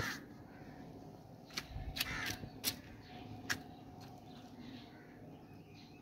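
Burning plastic tray crackling with a handful of sharp pops, and a bird calling at the start and again about two seconds in.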